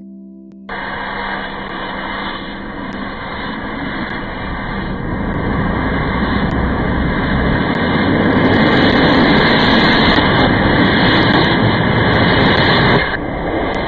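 Loud rushing noise that starts suddenly just under a second in, swells steadily over about twelve seconds, and drops off abruptly near the end.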